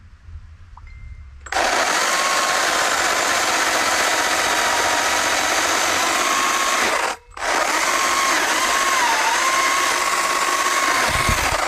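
STIHL MSA 160C battery chainsaw cutting through a small fallen log. It starts about a second and a half in, stops very briefly past the middle, then runs again. Its steady whine dips once near the end.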